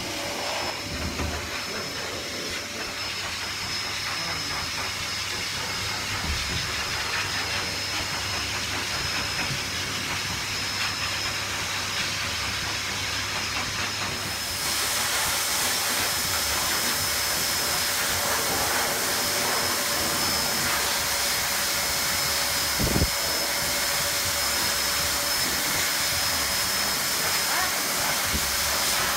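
High-velocity pet dryer blowing air through a hose nozzle onto a wet dog's coat: a steady rushing hiss with a thin whine, getting louder about halfway through. A single low thump sounds once about three-quarters of the way in.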